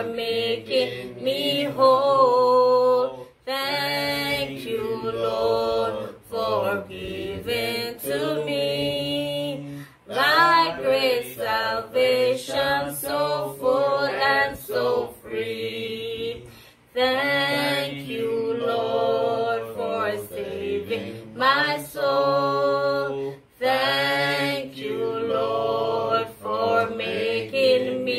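Unaccompanied singing of a worship song, with long held notes and gliding phrases broken by short pauses for breath.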